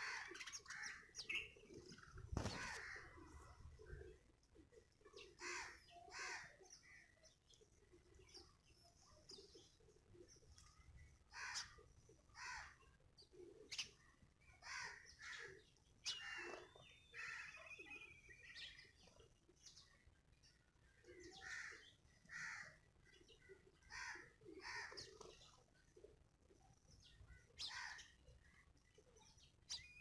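House sparrows chirping faintly in short, scattered calls, with a brief low thump about two seconds in.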